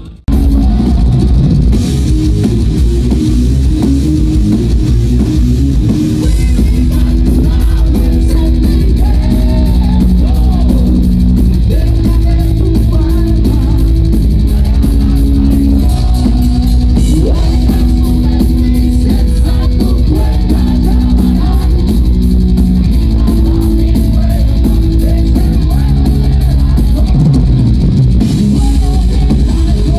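Heavy metal band playing loud and live: electric guitars, bass and drum kit, with a sung or lead melody over the top.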